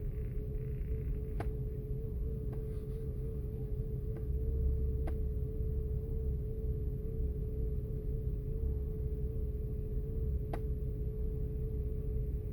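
2005 Audi A8's 6.0-litre W12 engine idling, a steady low rumble with a steady hum over it and a few faint ticks; the engine is misfiring in both cylinder banks.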